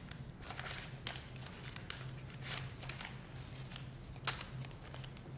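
Playing cards handled at a table: a few soft taps and flicks, with a sharper tap about four seconds in, over a steady low hum.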